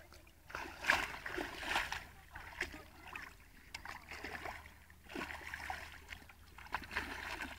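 A dog wading and splashing in shallow water, with irregular splashes and sloshing as it paws and dips its muzzle after a floating toy.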